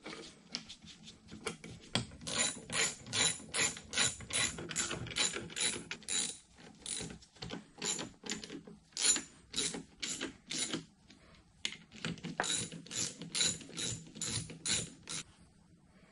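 Socket ratchet wrench clicking at about three clicks a second in short runs with brief pauses, tightening the four bolts that hold a motor's rear end bell to its main casting. The clicking stops about a second before the end.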